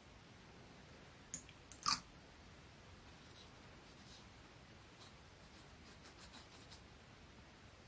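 Hands handling a fabric running gaiter with a small metal hook: two sharp clicks about a second and a half and two seconds in, then a few faint ticks, over quiet room tone.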